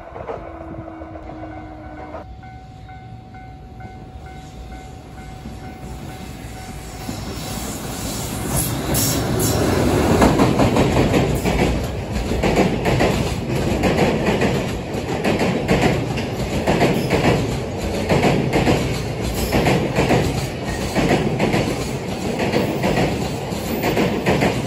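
An electric train approaching and passing close by: the sound builds over several seconds, then the wheels clatter over the rail joints in a steady repeating rhythm as the cars go past.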